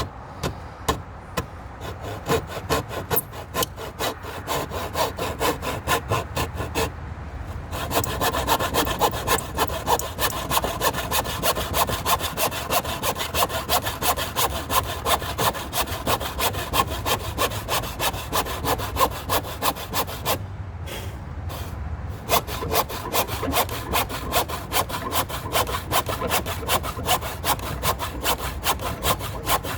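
Hand saw cutting through timber with steady back-and-forth strokes, about two a second, stopping briefly about twenty seconds in and then carrying on.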